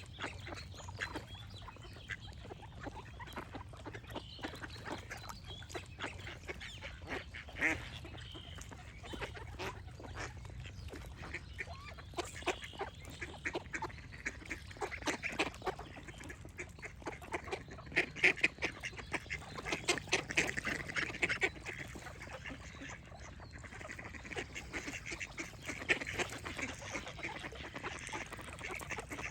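Ducks quacking in repeated runs of short, rapid calls, busiest in the middle and again near the end.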